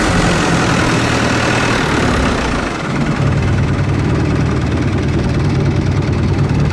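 Thai longtail boat's engine running steadily and loudly under way, with a short dip about three seconds in after which its low note shifts.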